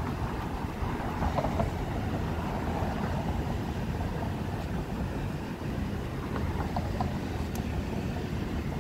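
Steady low rumble of street traffic passing, with no clear single event standing out.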